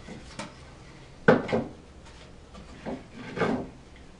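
Old barnboard pieces being handled for assembly: a sharp wooden knock about a second in, then a few scrapes and rubs of board against board.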